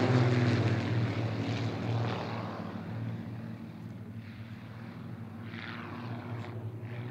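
Propeller engines of a four-ship formation of Extra 300-family aerobatic planes droning overhead. The drone fades over the first few seconds as the formation draws away, then holds steady and low.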